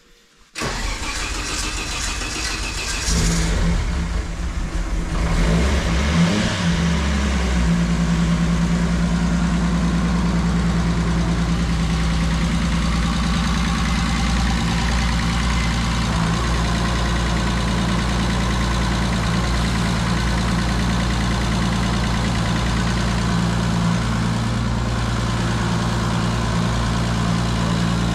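Turbocharged race-car engine cranked on the starter motor, catching after a few seconds with some uneven running and revving, then settling into a steady idle. It is the engine's first start of the season.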